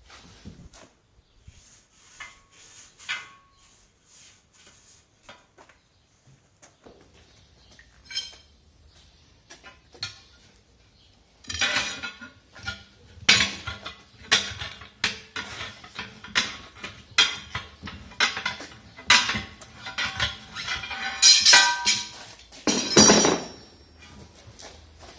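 Steel tire pry bars clanking and scraping against a steel truck rim as the tire bead is levered over the rim flange. The first half holds a few scattered clicks. From about halfway in come rapid, irregular metal clanks, ending in a longer scrape near the end.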